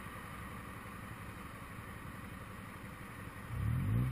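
Motorcycle engine idling with a steady low rumble, then briefly revved, its pitch rising, about three and a half seconds in.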